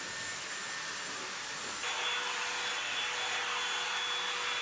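Hair dryer blowing steadily while drying and styling damp hair. About two seconds in, its whine changes abruptly to a different steady pitch.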